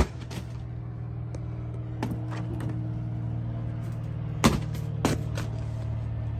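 Several sharp knocks and thuds from the motorhome's interior fittings (table and cushions) being pulled out, the loudest about four and a half seconds in, over a steady low hum.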